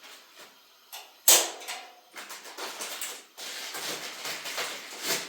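A sharp knock about a second in, then scraping, rustling and small clatters of things being handled indoors, with another click near the end.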